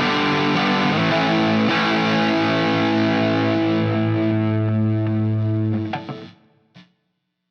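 Electric guitar of a Strat-style partscaster playing chords: a few strums, then one chord left to ring for about four seconds before it is muted suddenly about six seconds in, followed by a short scratchy pick noise.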